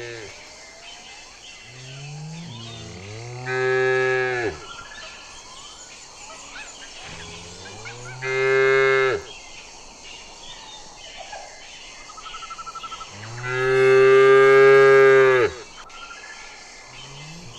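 A domestic cow mooing: three long moos a few seconds apart, each swelling into a loud held call, the third the loudest and longest, with another moo starting near the end. Faint chirping runs in the background.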